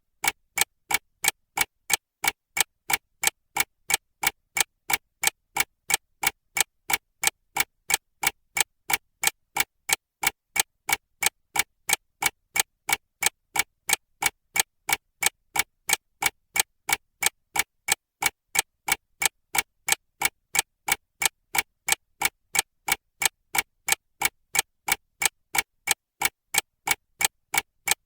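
A mechanical clock ticking steadily, about three even, sharp ticks a second.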